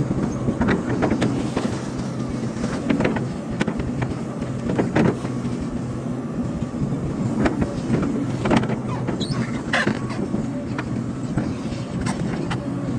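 Hydraulic excavator's diesel engine running steadily, with scattered clanks and knocks over it.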